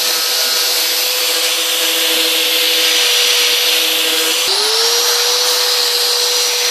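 Handheld electric angle grinder running at full speed, a steady high whine with a loud hiss, its disc held against a cardboard box to cut it open. About four and a half seconds in, the whine drops out and spins back up to speed.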